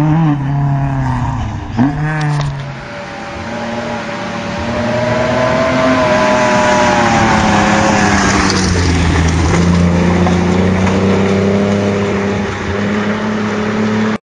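Rally car engines on a gravel forest stage. One car approaches and passes at speed, its engine note rising and then falling as it goes by about eight or nine seconds in. Another engine then runs at steady revs until the end.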